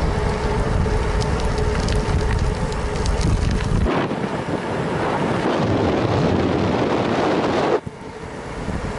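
Wind rushing over a bike-mounted action camera's microphone, with tyre noise on pavement, while a bicycle rolls along at speed. A deep rumble and a steady hum in the first few seconds give way abruptly to a lighter rush, which drops off sharply near the end.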